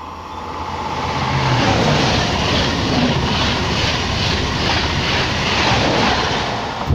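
Double-deck TGV Euroduplex high-speed train passing at speed. A rush of wheel and air noise swells over the first two seconds, then holds loud and steady, with a regular beat of about three pulses a second as the bogies go by.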